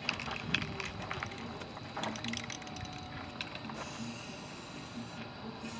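Aerosol spray paint can hissing in short bursts, starting about two-thirds of the way in, after a few light clicks in the first two seconds.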